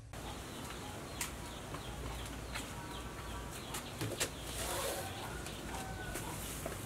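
Birds chirping and chickens clucking around an open-air yard, with a soft knock about four seconds in as a wicker basket is set down on a wooden table.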